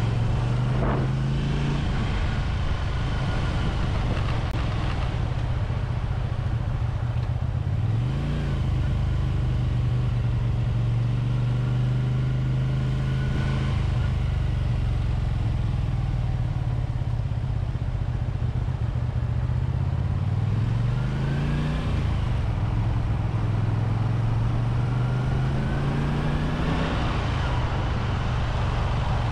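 1985 Honda VT250F Integra's 250 cc V-twin engine running on the move. Its revs climb in a rising pull about eight seconds in and again around twenty seconds in, and hold steady in between.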